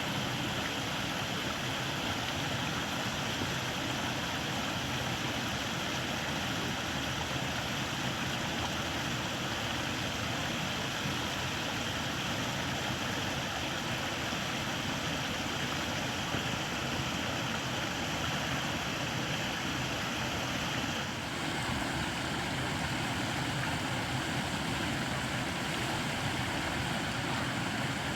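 Steady rushing of flowing stream water, an even hiss with no breaks; its tone brightens slightly a little past two-thirds of the way through.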